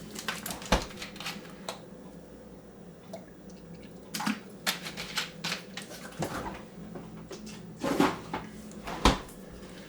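Scattered clicks, taps and knocks of kitchen containers and utensils being handled while lemon juice is added to a marinade, with the sharpest knocks near the end.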